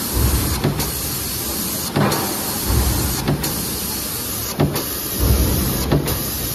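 Mechanical power press running a progressive stamping die: a steady hiss and running noise, with a stroke knocking about every 1.3 seconds.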